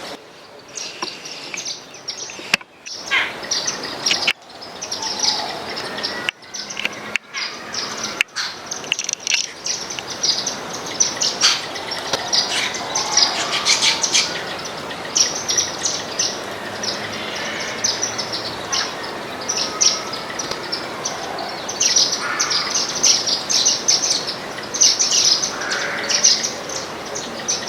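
A flock of Indian silverbills (white-throated munias) chirping continuously at a feeder, a dense chatter of short high-pitched calls. The chatter breaks off briefly a few times in the first eight seconds.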